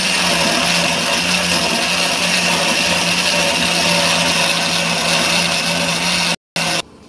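Countertop electric blender running steadily, puréeing tomato, onion, garlic and red pepper into a thick sauce: a steady motor whir with a low hum. It cuts off abruptly near the end.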